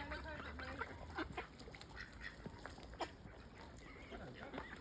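Ducks calling, a series of short quacks.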